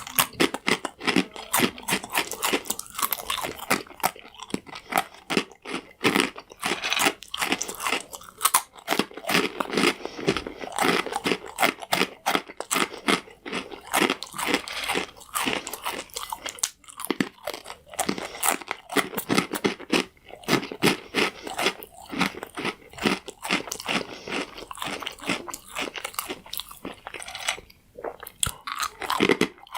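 Close-up chewing of crunchy croutons: rapid, continuous dry crunching and crackling of toasted bread between the teeth.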